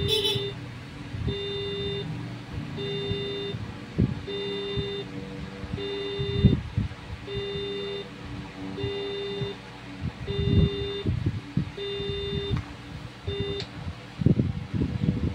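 Electronic beeping from a Gold Hunter Xpro LRL 3D long-range locator: a low buzzer-like beep about half a second long, repeating evenly about every second and a half, about ten times, then stopping near the end. Light thumps from handling on the table come in between.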